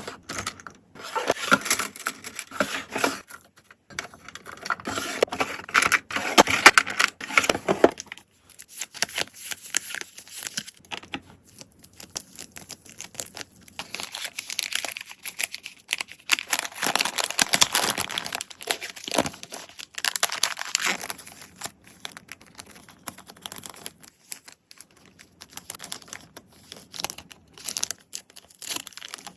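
Packaging being handled for an order: plastic and paper crinkling, rustling and tearing in irregular bursts with short pauses, mixed with small clicks and taps.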